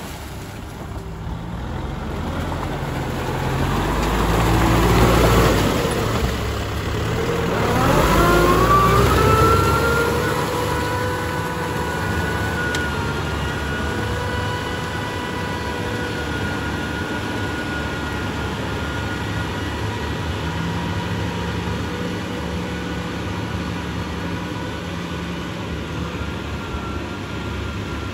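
Tractor engine working a rotary tiller through wet paddy mud. Its pitch rises twice in the first ten seconds, then it runs steadily.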